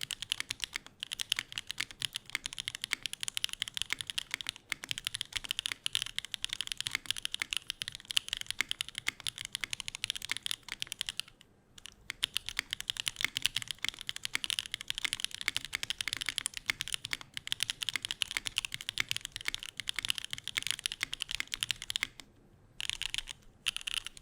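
Continuous fast typing on a Neo65 custom mechanical keyboard with stock SWK Jieum V2 switches, GMK keycaps, an FR4 plate and no foam: a dense, rapid stream of key clacks. It pauses briefly a little before halfway, and near the end breaks into a few short separate bursts.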